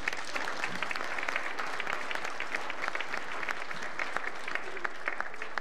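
Audience applauding: many hands clapping, starting right away and dying out near the end.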